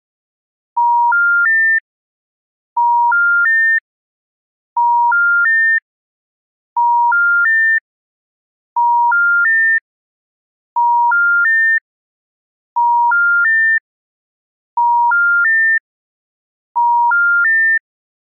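East German telephone special information tone (SIT): three short beeps stepping up in pitch, each about a third of a second long, repeated every two seconds with silence between, nine times. It is the network's signal that a call cannot be completed as dialled.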